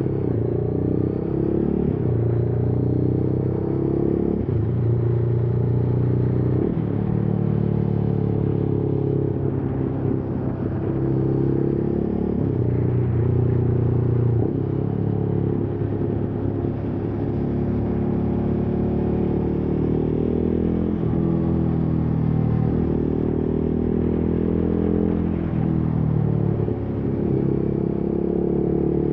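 Motorcycle engine running while riding, its pitch rising and falling again and again as the throttle is opened and closed.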